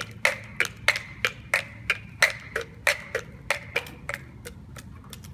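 Child's plastic dress-up high heels clacking on wet concrete with each step, a steady walking rhythm of about three sharp clicks a second that grows fainter near the end.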